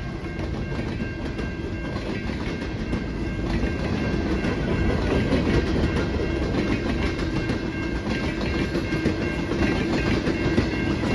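Freight train rolling past at close range, its wheels clattering steadily over the rail joints.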